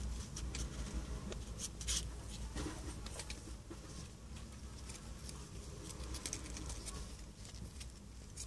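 Four-day-old kittens shuffling and crawling over one another on a towel: soft scratching and rustling with scattered light clicks, the sharpest about two seconds in, and no mewing.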